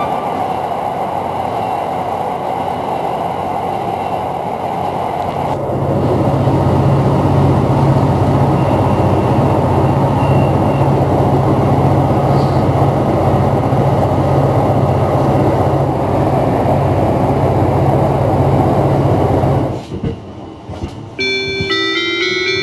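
Running noise of the Cassiopeia sleeper train heard inside the carriage: a steady rumble and rush of the train at speed. It grows louder with a deeper rumble about six seconds in, then drops away suddenly near the end.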